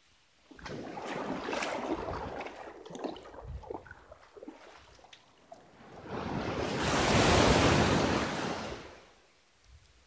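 Surf on a sandy beach. One wave breaks and washes up the shore about six seconds in, swelling and fading away over about three seconds as the loudest sound. Before it there is a rougher, uneven rushing, with wind on the microphone.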